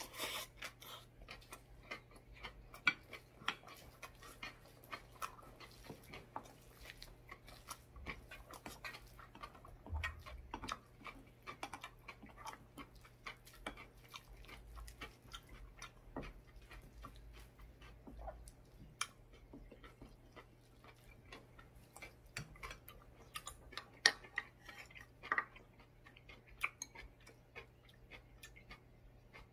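Close-up eating sounds of bean sprout rice and julienned radish salad: soft chewing with many small wet mouth clicks. There are a few sharper taps from the utensils against the bowls.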